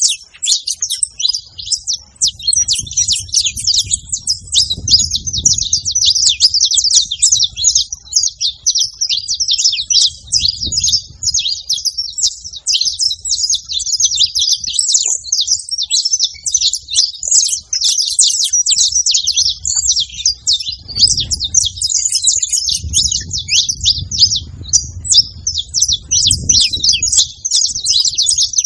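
A group of saffron finches chirping and singing busily, many short calls overlapping without a break. A faint low rumble comes and goes underneath.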